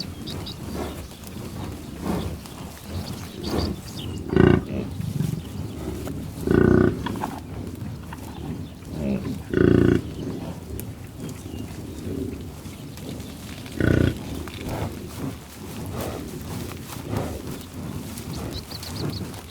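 Buffalo calling with short, loud, low moos and grunts. Four louder calls come a few seconds apart, with quieter ones between.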